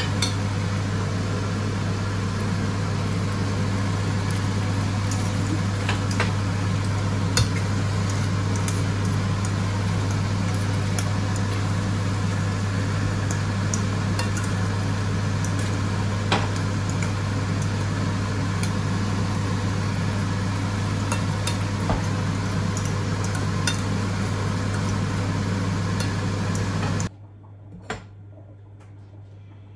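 Food sizzling and simmering in pans on an electric hob, a noodle omelette frying and a curry sauce bubbling, over a steady low hum, with occasional small clicks and pops. Near the end it cuts off abruptly to quiet room tone, followed by a single light clink.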